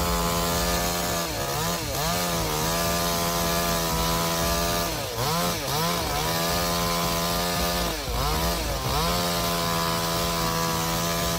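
Chainsaw running at high revs through a cut. Its pitch dips briefly about three times as the saw bogs under load, then climbs back.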